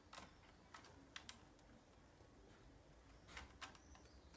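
Faint, scattered clicks of plastic Lego pieces being handled and pressed together, with a small cluster of clicks near the end.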